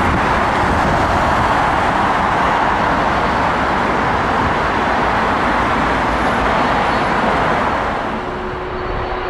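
Jet engines of a Boeing 777 running on the runway: a loud, steady roar that eases slightly about eight seconds in, when a steady fan tone comes in.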